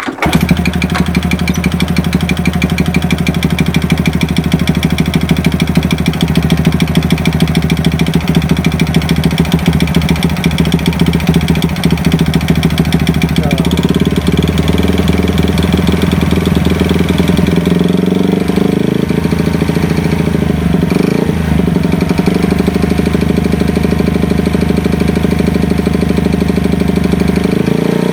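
Honda Super Cub's four-stroke single-cylinder engine running with piston slap: the piston rocks in its bore, giving a knock on top of the engine note. The engine note changes about halfway through.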